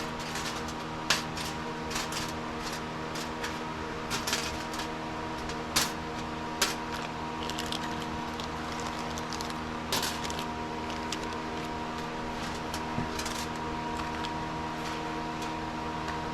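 Irregular small metal clicks and taps of hand tools and small parts being handled during work on diesel fuel injector return lines, over a steady hum.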